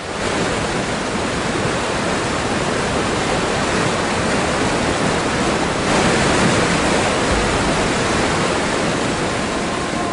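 Steady rush of fast-flowing water, a loud even roar that swells a little about six seconds in.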